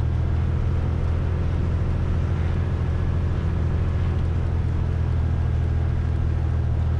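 Cessna 210's freshly overhauled six-cylinder Continental piston engine running steadily at run-up power, about 1700 rpm, during the magneto check. Heard from inside the cockpit.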